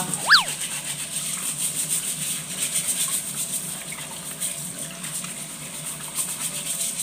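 Tap water running and splashing into a metal bowl of crabs in a stainless steel sink as they are scrubbed clean by hand. About a third of a second in, a brief squeak drops sharply in pitch.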